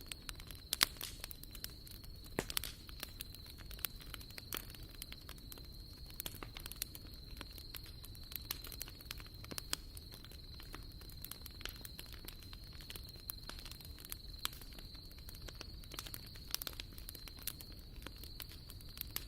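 Wood fire crackling, with irregular sharp pops and snaps throughout. A faint steady high whine runs underneath.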